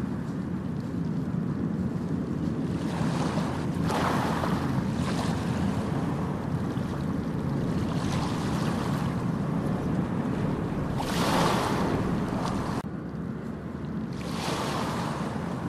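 Ocean waves breaking and washing up a beach, four surges of rushing surf a few seconds apart over a steady low rumble, with wind buffeting the microphone.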